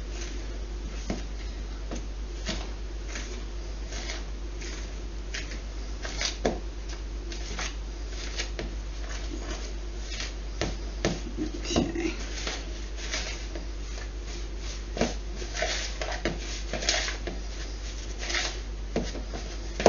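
A hand utensil stirring a wet flour, egg and water mixture into dough in a mixing bowl: irregular scrapes and light clicks against the bowl, over a steady low hum.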